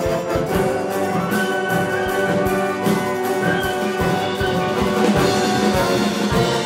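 Symphonic wind ensemble playing: brass holding full chords over low drum hits that come about twice a second.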